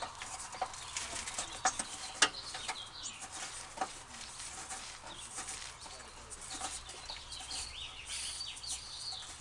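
Hand work fastening an exhaust hanger bracket under a car: scattered sharp metal clicks and scrapes, the loudest about two seconds in, with a run of short high squeaks near the end.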